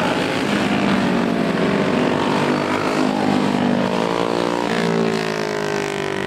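Several go-kart engines running together, their overlapping notes rising and falling as the karts accelerate and lift around the track.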